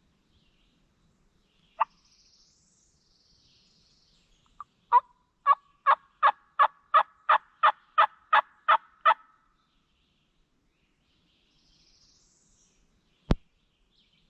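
A turkey call sounding a hen's yelp series: about a dozen evenly spaced yelps at roughly three a second, with a single sharp cluck a few seconds before it. These are soft calls meant to draw a gobble. A sharp knock comes near the end, and faint songbird chirps sound in the background.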